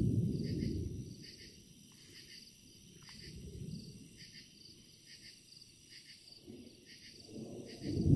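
Crickets chirping in a steady, evenly repeating pulse, about two chirps a second. A low rumble fades out over the first second and another swells up near the end; these rumbles are the loudest sound.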